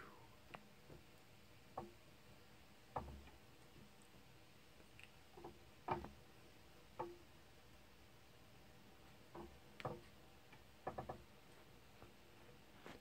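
Near silence broken by scattered faint clicks and taps, a few in quick succession near the end: handling noise as the kaleidoscope viewer is moved and turned.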